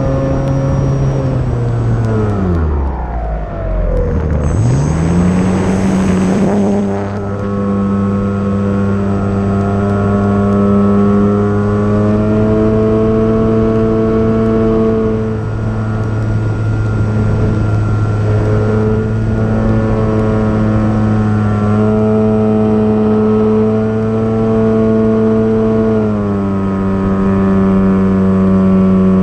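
Electric brushless motor and propeller of an E-flite Timber RC plane, heard from a camera on board. The whine drops steeply about two seconds in as the throttle comes off, then climbs back within a couple of seconds and holds a steady pitch, easing down a little near the end.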